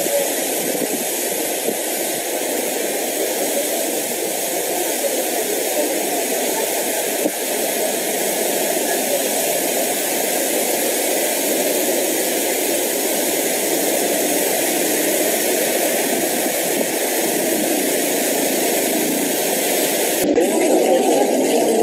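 Steady, loud rushing of water from a burst water main blasting a tall jet into the air after the earthquake broke it.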